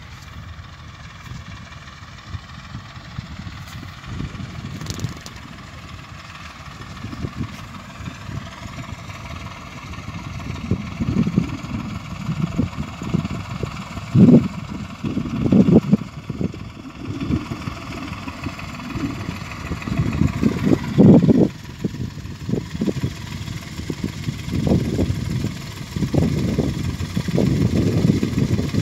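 Tractor's diesel engine running steadily as it works across the field, its pitch drifting a little. Irregular low wind buffeting on the microphone grows stronger in the second half.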